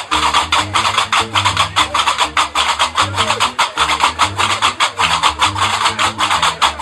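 Algerian diwan music: a guembri plucking a repeating bass riff under fast, even clacking of qarqabou iron castanets.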